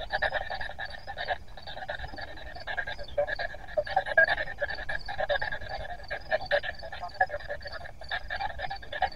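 Spirit box (a radio scanner) sweeping rapidly through the band: choppy, stuttering static broken into many short chops a second.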